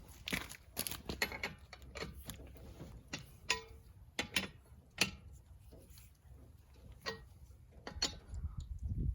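Lug wrench clicking and clinking against the lug nuts as they are snugged down on a spare wheel. The clicks are irregular: a quick cluster at first, then roughly one a second, some with a short metallic ring.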